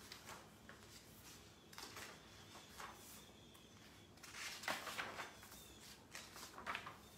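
Paper sheets and book pages being handled and turned, a few faint short rustles, the loudest a little past the middle.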